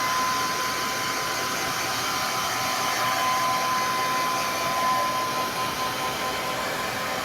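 Handheld hair dryer blowing steadily with a constant whine over its airflow noise, the usual way to dry a Pomeranian's coat after a bath.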